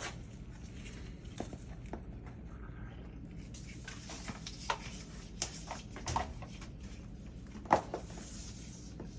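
Scattered light clicks and knocks of dryer parts being handled, over a low steady hum, with one sharper knock near the end.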